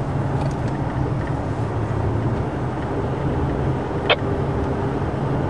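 Steady low rumble of a vehicle driving through a dust storm, heard inside the cabin: wind and road noise. A single sharp click comes about four seconds in.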